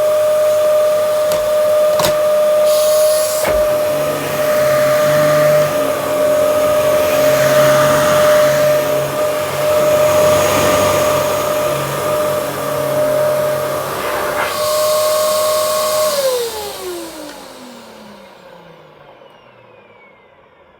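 Dyson DC07 upright vacuum cleaner running with a steady motor whine, with a couple of knocks a few seconds in. About sixteen seconds in it is switched off and the motor winds down in a long falling whine.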